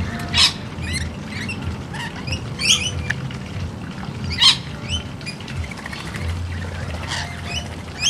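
Flock of rainbow lorikeets chattering while feeding: a string of short, sharp, high calls, with louder screeches about half a second in, near three seconds and about four and a half seconds in, over a steady low rumble.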